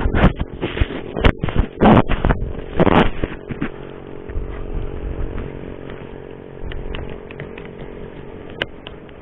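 Yamaha RX-King two-stroke motorcycle engine, revved in several short loud blips and then settling to a steadier, quieter run.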